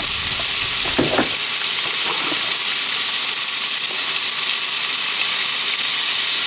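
Chunks of top sirloin steadily sizzling in hot oil in a large pot on a camp stove burner turned up to full: the meat is browning.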